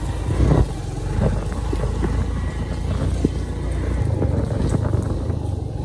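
Wind rumbling on the microphone, with irregular light clicks and knocks.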